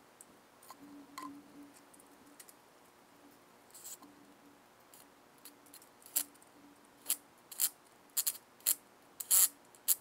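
Lug nuts being fitted to an ATV wheel with a cordless Ryobi tool: sharp metallic clicks and short rattles. They are sparse at first and come thick and fast over the last few seconds.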